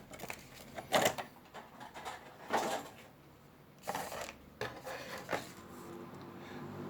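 Handling noise from a boxed action figure's packaging and its small comic booklet: a handful of short rustles and knocks, the loudest about a second in.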